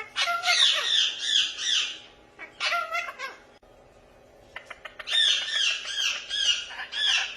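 Parrot squawking in two long runs of quick, repeated harsh calls, about four or five a second, with a shorter call about three seconds in between them.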